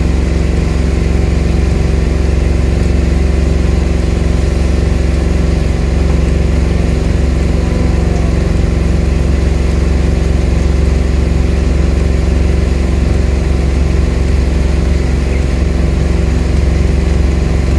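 An engine running steadily at a constant speed: a loud, unchanging low hum.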